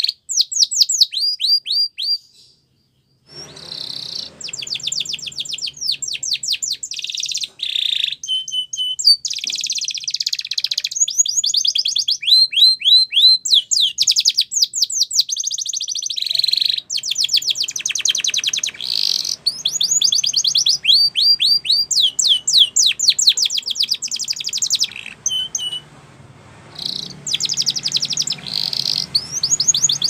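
Spanish Timbrado canary singing: fast rolling trills and runs of quick sweeping notes, with a short pause about two seconds in and a brief lull near the end.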